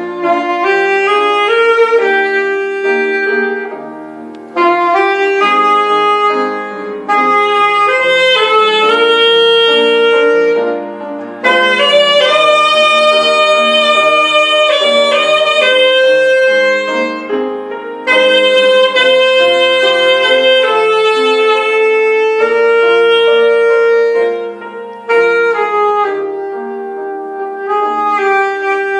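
Saxophone playing a gospel song melody over piano accompaniment, in phrases of long held notes with short breaks between them.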